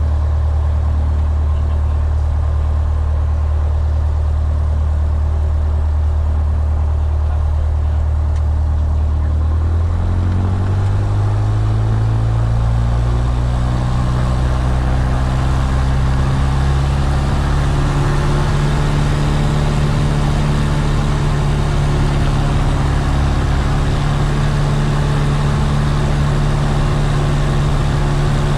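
Piper Warrior's four-cylinder Lycoming engine and propeller droning, heard from inside the cockpit. About ten seconds in, the engine speeds up, the pitch rising over a few seconds, and then it holds steady at the higher speed.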